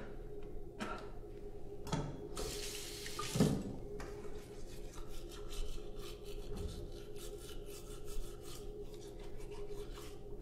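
Teeth being brushed with a manual toothbrush, a quick run of scrubbing strokes, over a tap running into a sink. About two and a half seconds in there is a louder rush of water, ending in a thump.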